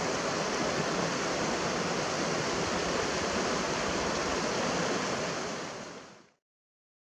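Steady rush of fast-flowing mountain stream water, with no bird calls heard; it fades out about six seconds in.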